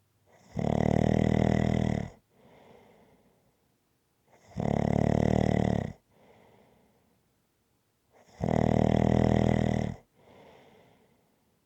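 A person snoring in a steady rhythm: three loud snores about four seconds apart, each lasting about a second and a half and followed by a softer breath.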